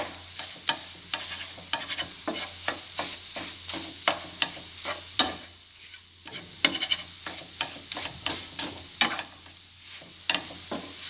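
Spatula repeatedly chopping and scraping fried egg in a frying pan, sharp irregular knocks on the pan several times a second, over oil sizzling steadily.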